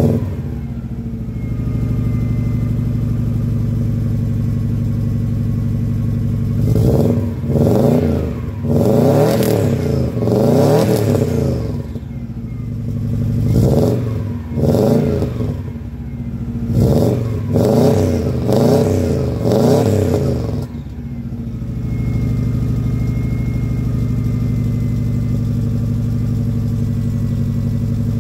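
1992 Subaru Legacy RS (BC5) turbocharged flat-four idling after a cold start, through a decat 3-inch downpipe, a 2.5-inch centre and rear section and a Raptor back box. From about seven seconds in to about twenty seconds in, it is revved in a series of quick throttle blips, each rising and falling, then it settles back to a steady idle.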